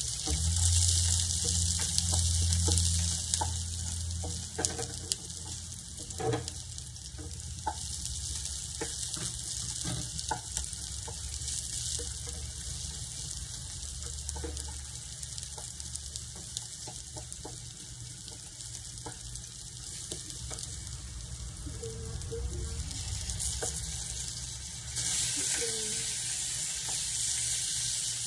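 Chopped garlic and onion sizzling steadily in hot oil in a frying pan as they are sautéed, with light clicks of a wooden spoon against the pan. About 25 seconds in, the sizzling turns louder as marinated chicken and pork go into the hot pan.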